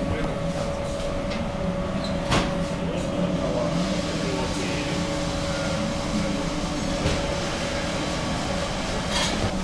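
Steady mechanical hum of a drum coffee roaster running, holding several constant tones, with one sharp knock about two seconds in.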